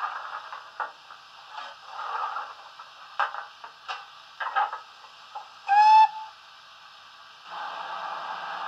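LokSound 5 sound decoder in a Hornby GWR Castle class model steam locomotive, playing standing-engine steam sounds through a small speaker. A run of short hisses and clicks comes first, then one short whistle blast about six seconds in, the loudest sound. A steady hiss of steam starts about a second and a half later.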